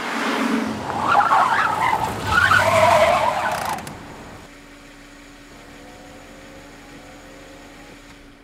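A car's tyres skidding and squealing as it brakes hard, loud and rough for about four seconds. Then a quieter steady hum with a faint rising whine.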